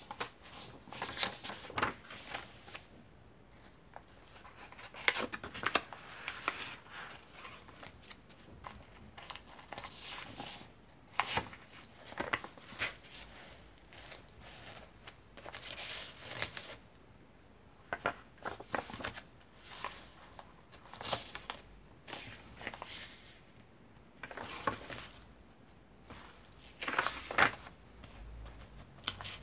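Vintage paper pages of a thick handmade junk journal being turned and handled: a series of dry paper rustles and crinkles, each a second or two long, with short quiet gaps between.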